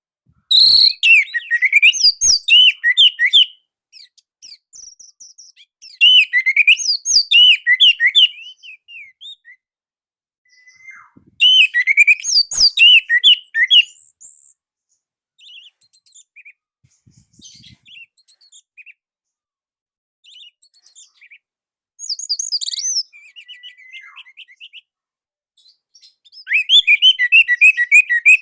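Orange-headed thrush singing: five bursts of rapid, tightly packed high notes, each lasting one to three seconds, with softer scattered notes in the gaps between them.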